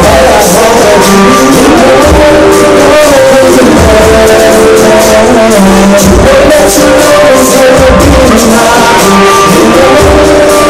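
Loud live music: a man singing an original song over a beat with drums and cymbals.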